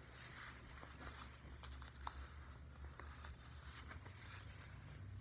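Faint rustling of clothing as a pair of pants is pulled on, with a few small clicks, over a low steady hum.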